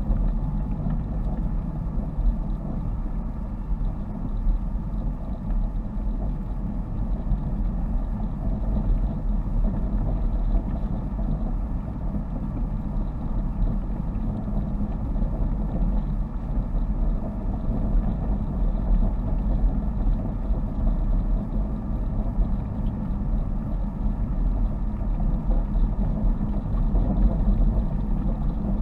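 Car engine and tyre noise heard from inside the cabin while driving along a narrow road, a steady low rumble.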